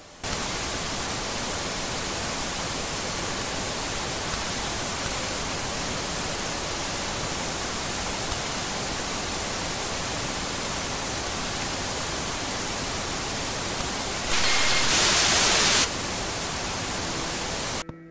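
Loud, steady hiss of static-like noise that cuts in suddenly and cuts off just as suddenly, with a brief, brighter surge about fourteen seconds in.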